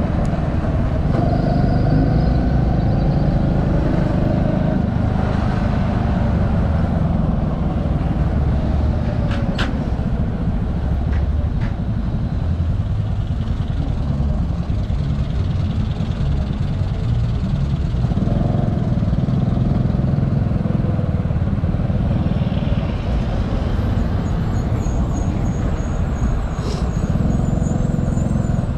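Small motorcycle being ridden in traffic, with a steady low rumble of engine and riding noise. The engine's pitch rises a couple of times as it speeds up.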